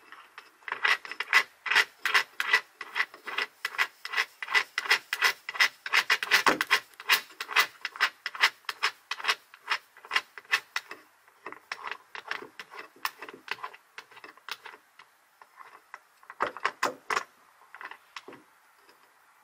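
Rapid rhythmic rasping strokes, about three a second, which thin out after about eleven seconds into scattered, quieter strokes with a short burst near the end.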